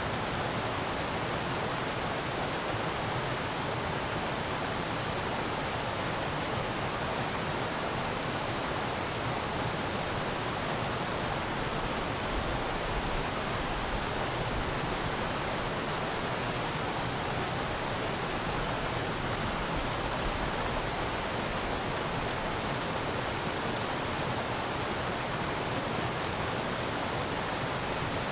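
Small creek cascading over rocks: a steady, even rush of falling water.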